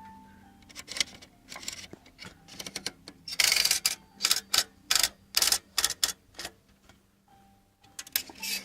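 Keys of a vintage Tom Thumb toy typewriter being struck, the typebars clacking one after another. The clacks are scattered at first, then come in a louder, quicker run of about three a second through the middle, then stop.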